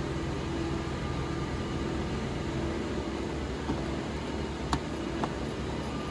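Steady fan-like hum of running shop machines, with a steady tone in it. Two short, light clicks come near the end as door-handle trim pieces are fitted.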